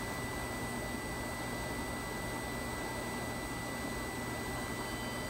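Steady hiss with a thin, steady high-pitched tone running through it.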